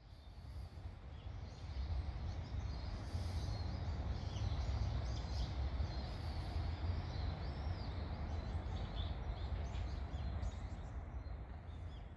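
Garden ambience: a low, uneven rumble with small birds chirping and calling above it, fading in over the first couple of seconds.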